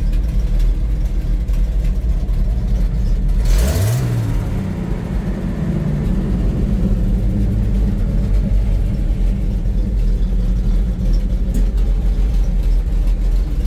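Chevrolet T50 cabover truck's engine idling, heard from inside the cab. About four seconds in, the engine speed rises briefly with a short hiss, then eases back to idle. The muffler has a big hole in it.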